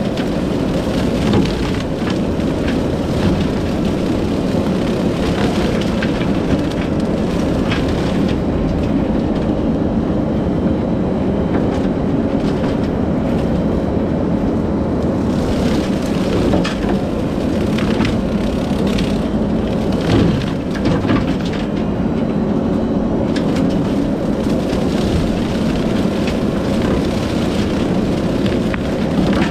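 Kubota SVL75-2 compact track loader running hard with a hydraulic Skidpro brush cutter: a loud, steady machine drone with frequent short cracks and snaps of brush being cut.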